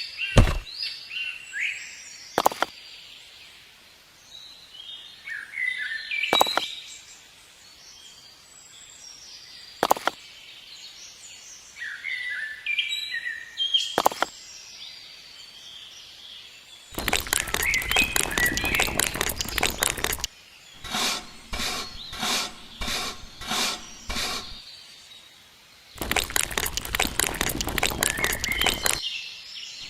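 Small birds chirping, with a sharp tap or crack every few seconds. Past the middle, loud rasping strokes take over: a long rub, then a run of short strokes about two a second, then another long rub.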